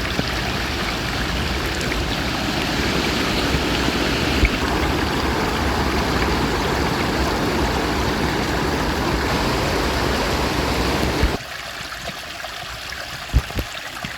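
Water rushing in a stream, a steady noise that drops abruptly quieter about eleven seconds in. A short thump comes near the end.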